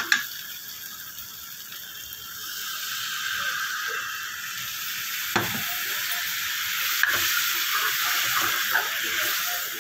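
Chickpea masala in a hot steel kadhai sizzling and hissing as water is poured in and stirred. The hiss builds a couple of seconds in and holds steady, with a steel ladle scraping and clicking sharply against the pan twice.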